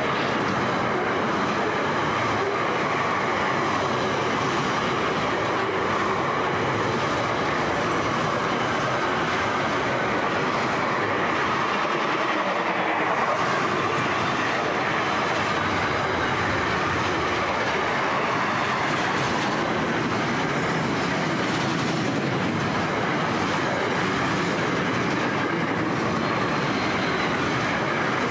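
Freight train container wagons rolling past at speed: a steady rumble of steel wheels on the rails, with the clickety-clack of the wheels running over the rail joints.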